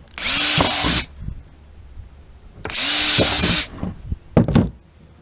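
Power drill boring holes through a cracked plastic four-wheeler panel: two runs of about a second each, the motor spinning up at the start of each. A short double knock follows near the end.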